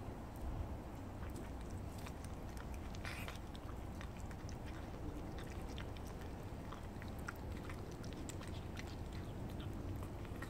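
A stray tuxedo cat chewing wet meat: a run of small wet clicks and smacks over a steady low background rumble, with a short noisy burst about three seconds in.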